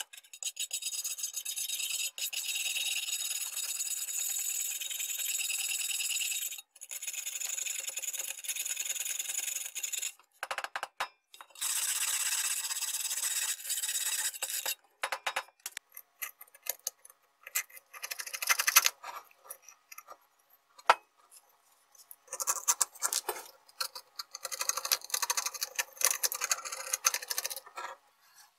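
Hand tools scraping and wire-brushing rust and packed wood-chip debris off the inside of the sheet-metal cover of a Makita 7100-B electric chain saw: a dry, high-pitched scratching in long strokes, broken by short pauses and some scattered scrapes.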